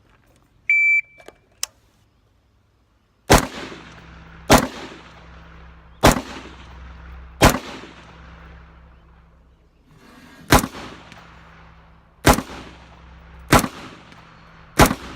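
A shot timer beeps once, then an AR-15 fires eight shots over about fourteen seconds, spaced one to three seconds apart with a longer pause after the fourth. Each shot rings out with a long trailing echo.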